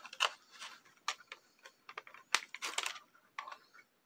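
Scattered small, sharp plastic clicks and brief crinkles from handling a bagged Beyblade top and its plastic launcher, with a small cluster of clicks about two and a half seconds in.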